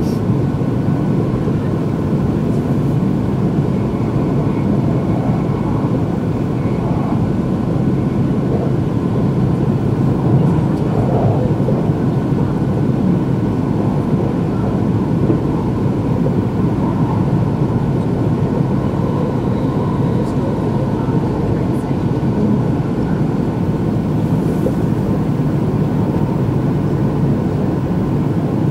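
Steady running noise of an E2 series Shinkansen train at speed, heard from inside the passenger cabin: a low, even rumble of wheels on rails and passing air.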